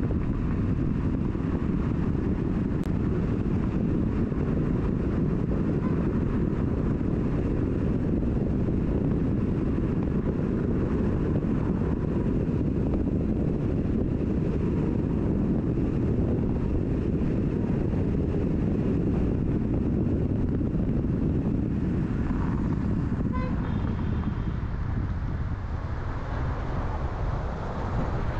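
Steady rumble of wind and road noise from a car driving through city traffic. A horn toots briefly about 23 seconds in, and the rumble drops off somewhat near the end.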